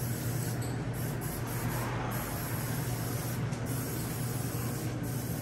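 Oil undercoating spray gun hissing steadily as it sprays the underside of the frame, over a steady low hum.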